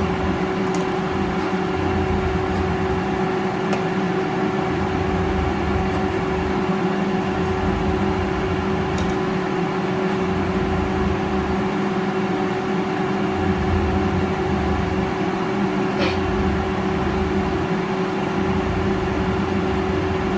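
Moulinex air fryer running empty while it preheats: a steady fan hum with a constant low tone, and a few light clicks over it.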